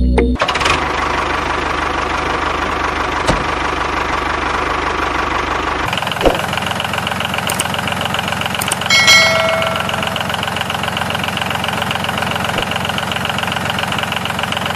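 Diesel tractor engine running at a steady, knocking idle. About six seconds in the sound shifts and loses its deepest rumble, and a short high tone rings out near nine seconds.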